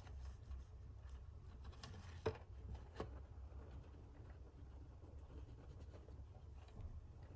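Quiet room with a low hum and scattered small ticks and clicks from a pet mouse moving and nibbling on a wire-mesh cage floor; two sharper clicks stand out a little after two and three seconds in.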